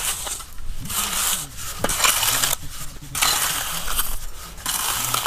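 Long spirit level dragged across a sand bed as a screed, scraping and pushing loose sand in repeated strokes about once a second, levelling the sand under a concrete sub-slab.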